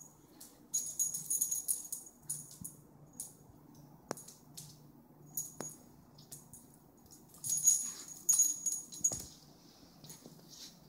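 Keeshond puppy playing with an ice cube on a hard floor: bursts of scrabbling and jingly rattling about a second in and again near eight seconds, with a few sharp clicks between as the cube skitters and the puppy's claws strike the floor.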